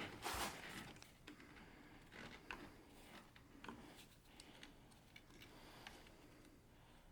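Near silence broken by a light knock just after the start and a few faint, scattered clicks, as of hands and tools handling parts under the hood.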